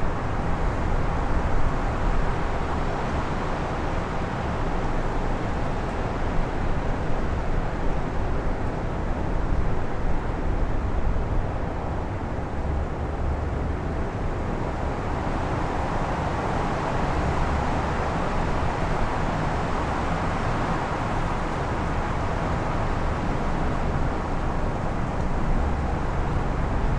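Strong wind gusting, a steady rush with heavy low rumble from wind buffeting the microphones, swelling into a stronger gust about halfway through before easing again.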